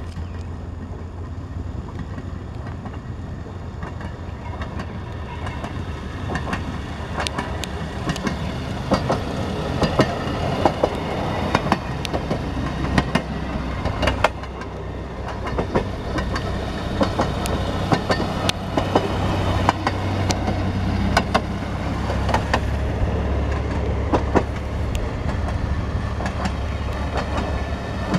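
A line of railroad motorcars (rail speeders) running past one after another, their engines running under a steady low hum, with frequent sharp clicks of the wheels over the rail joints. It grows louder about six seconds in as the first cars draw near and stays up as the rest go by.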